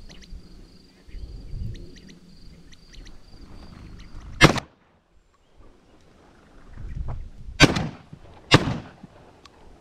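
Valley quail giving sharp, repeated warning calls from a bush. About halfway through, a shotgun fires once, then twice more about a second apart near the end.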